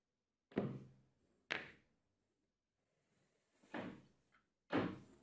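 Four dull wooden knocks of a plywood push block being set down on a plywood board, each sharp at the start and dying away quickly.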